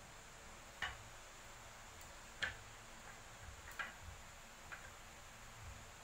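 A few faint, sharp clicks, about four, unevenly spaced, as a pencil and a metal straightedge are handled on a wooden plank while marking out a cutting line.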